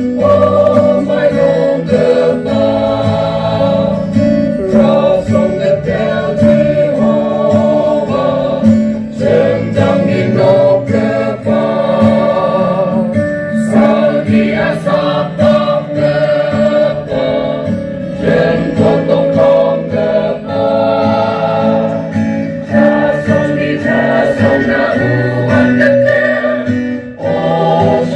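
A choir singing a gospel hymn with instrumental accompaniment.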